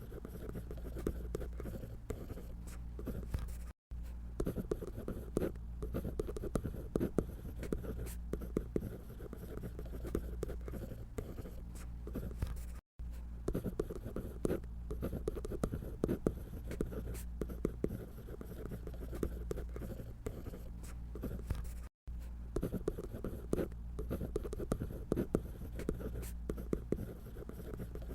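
Drawing tool scratching on paper in quick, continuous strokes, over a steady low hum. The strokes stop for three very short gaps, about every nine seconds.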